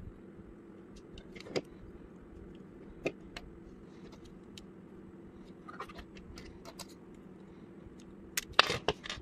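Lego bricks clicking as they are handled and pressed together: a few separate snaps, then a quick flurry of louder clicks near the end.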